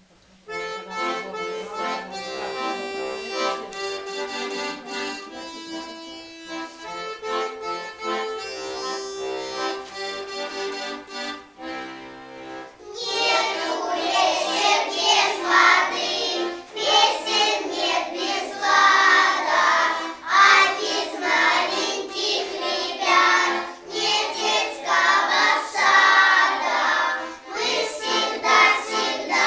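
Instrumental music of steady held chords, then a group of young children starts singing along with it about thirteen seconds in, louder than the opening.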